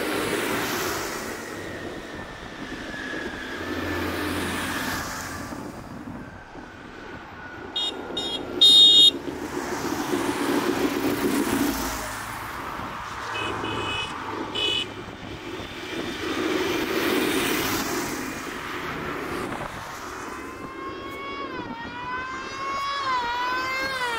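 Tractors, a Fendt among them, and classic cars pass one after another, each engine swelling and fading as it goes by. Horns toot in short blasts about a third of the way in and again a little past the middle. Near the end a warbling horn slides up and down in pitch.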